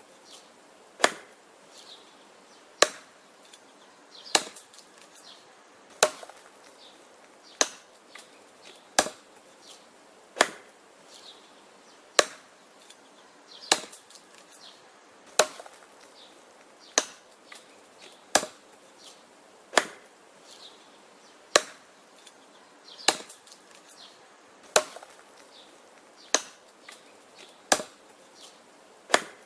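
Wood being chopped: sharp chopping strikes at a steady pace of about one every second and a half, with fainter knocks between them.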